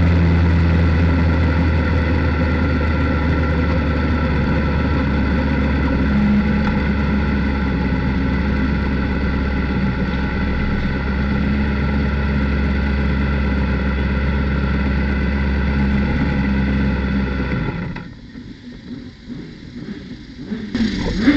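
Sportbike engine idling steadily in the pit garage, then switched off about 18 seconds in, leaving only faint garage background.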